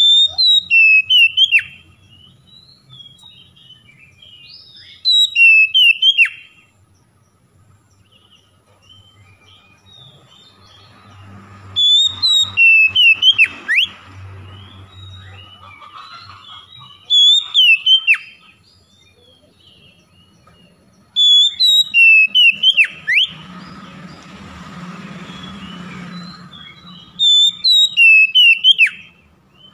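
Oriental magpie-robin singing: six loud whistled phrases of quick rising and falling sweeps, each a second or two long, repeated about every five seconds, with faint chips between them.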